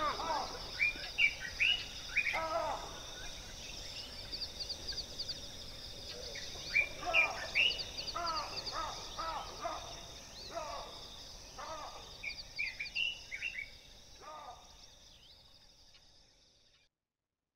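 Birds calling in short groups of gliding notes over a steady, high-pitched background hiss. The sound fades away near the end.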